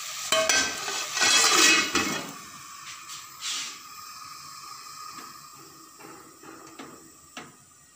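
A loud rushing hiss for about two seconds, then a faint steady hiss with a few light clicks as a gas stove's control knob is turned down to a low flame under the pot.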